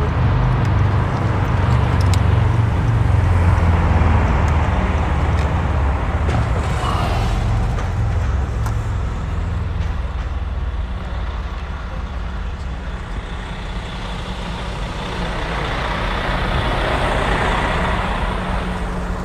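A car's engine and tyre noise heard from inside the cabin while driving slowly: a steady low rumble, loudest a few seconds in, with a rise in higher noise near the end.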